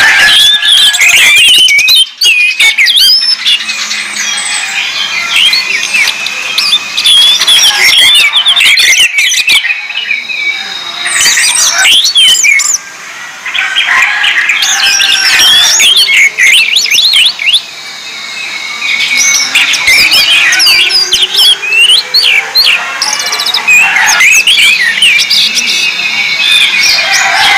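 Orange-headed thrushes singing loudly: fast, varied whistled and chattering phrases that overlap densely, with brief pauses about 2 s, 13 s and 17 s in.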